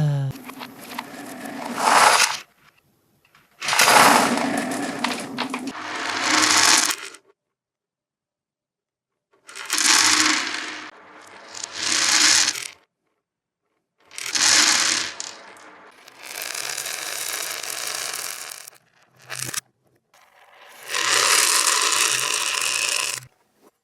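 Small plastic beads pouring and rattling, played in reverse, in a series of separate bursts of one to three seconds with silent gaps between them.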